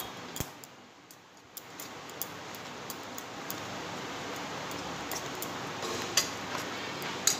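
A steel spoon stirring flour and water into a batter in a metal bowl: a soft steady stirring noise from about a second and a half in, with a few light clinks of the spoon against the bowl.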